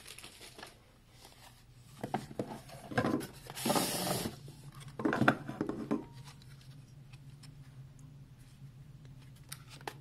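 Handling noise from the interior assembly of an electronic keypad deadbolt lock being turned over in the hands. A few rubbing and scraping sounds come between about two and six seconds in, and a few light clicks near the end.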